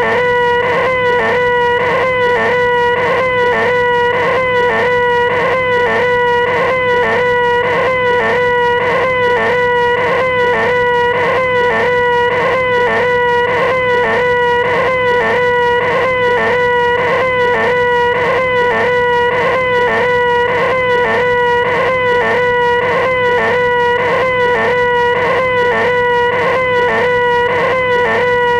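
A man's nasal, high-pitched 'eeeeh' screech, the 'most annoying sound in the world', held on one steady pitch and repeated over and over without a break, with a small regular wobble in pitch.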